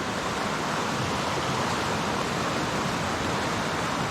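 Steady rush of river water tumbling into a plunge pool, an even wash of noise with no breaks.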